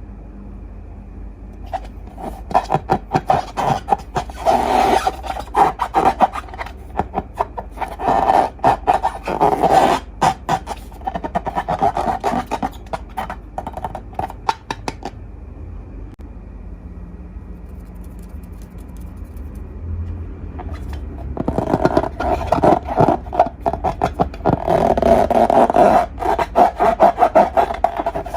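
Slime being squeezed and worked by hand: sticky, wet crackling and clicking in dense runs. It is busy for the first half, eases off for several seconds, then picks up again near the end.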